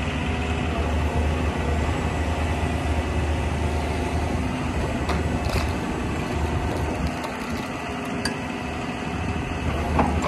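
John Deere 200D excavator's diesel engine running steadily as the boom, arm and bucket are worked hydraulically, with a few short clanks near the end.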